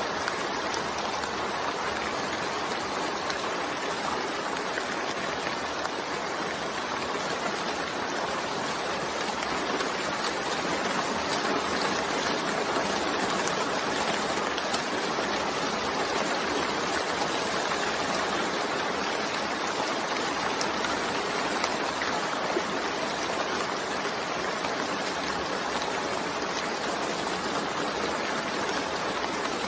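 Steady rain falling, an even, unbroken hiss with no letup.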